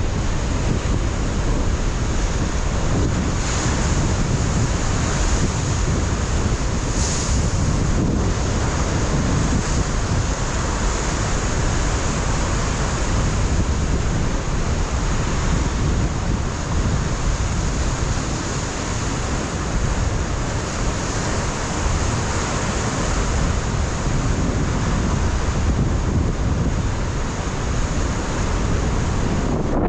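Ocean surf breaking and washing over a rocky shoreline, with strong wind buffeting the microphone in a continuous low rumble.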